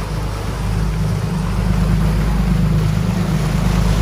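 Sport-fishing boat's engines running with a steady low drone, over the rush of the churning wake and wind on the microphone; it grows a little louder about a second and a half in.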